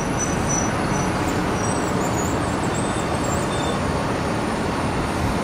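Steady roar of airport apron noise from a parked airliner and its ground-service vehicles, even and unbroken throughout, with a faint high whine in the first second and a half.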